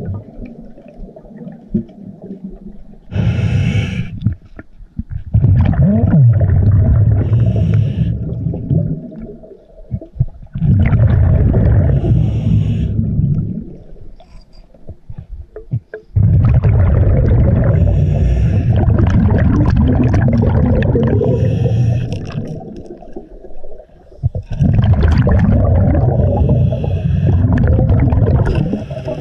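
Scuba diver breathing through a regulator underwater: hissing inhales alternating with about five long, bubbling exhales.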